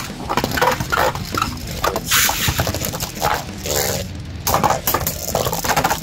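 Beyblade spinning tops launched into a plastic Hypersphere stadium, spinning and clattering against each other and the plastic walls with many irregular clicks and knocks. Several louder short bursts come over the clatter.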